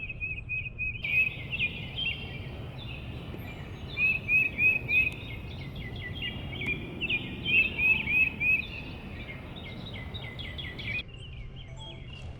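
Songbirds singing: clear whistled notes repeated in quick runs of three or four, over a steady background of other bird calls.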